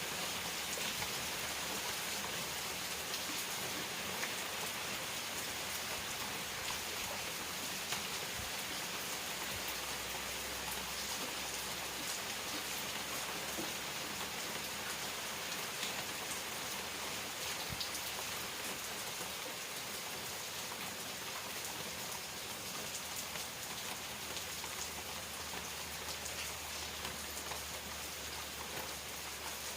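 Steady rain falling, a dense hiss with the fine patter of many drops landing on surfaces.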